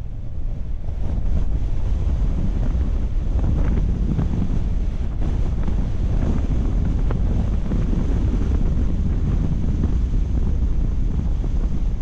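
Wind buffeting the microphone: a loud, steady low rumble that builds up about a second in.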